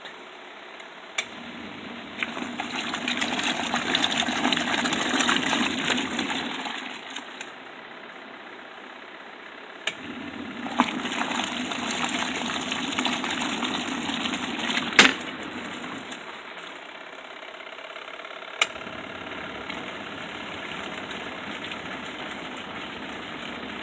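A ROVSUN portable mini washing machine running, its water churning in two bouts of several seconds with a quieter pause between. A click follows, and then the machine runs more quietly and steadily.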